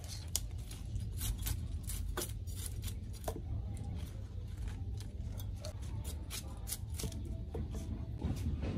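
Knife cutting crisp leafy green stalks on a wooden chopping board, with leaves being stripped from the stems by hand: a string of irregular sharp cuts and snaps over a steady low hum.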